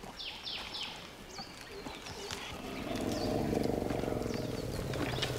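Asian elephant giving a low, pulsing rumble that starts about halfway through and grows louder. Near the start, birds call with three quick falling chirps.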